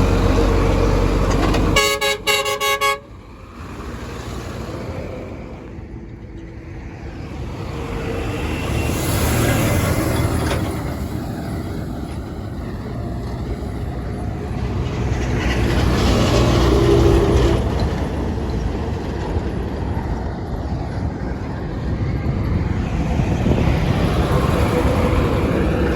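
Heavy construction machinery and engines running with a loud, deep rumble, and a horn sounding in a brief run of toots about two seconds in. The machinery noise then goes on, rising and falling.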